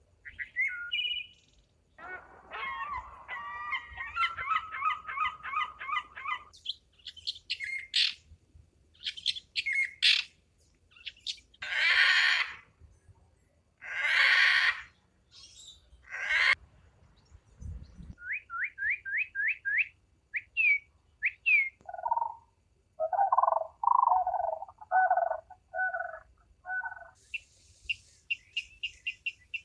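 Birds calling: a run of different calls one after another, including quick series of short rising chirps, trills, and a couple of longer harsh calls.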